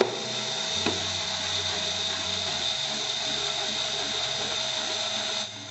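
Cordless drill-driver running steadily as it drives a screw into a plastic speaker cabinet, stopping shortly before the end.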